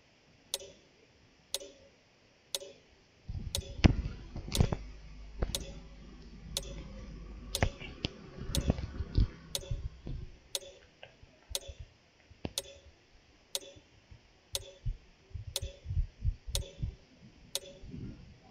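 On-screen timer's tick sound, one sharp tick every second. Dull knocks and low rumbling break in from time to time, loudest a few seconds in.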